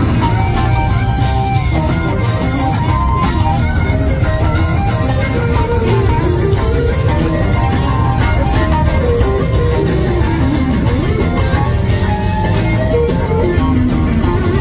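Live blues-rock band with an electric guitar lead line, its notes bending up and down, over the band's steady backing.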